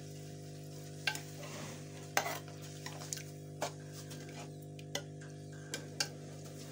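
A metal spoon stirring and scraping dal in a metal karahi, knocking sharply against the pan about six times. The dal is simmering in its masala over high heat. A steady low hum runs underneath.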